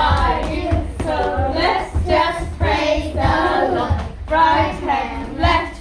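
A toddler's high voice singing, one syllable after another, with a low thump about once a second underneath.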